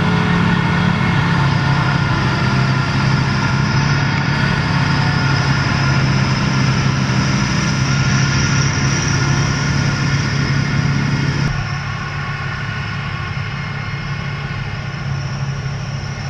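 KVK-800 forage harvester running steadily under load: a constant engine hum with the rushing of chopped grass being blown out through the spout. About eleven seconds in the sound drops a little and turns duller.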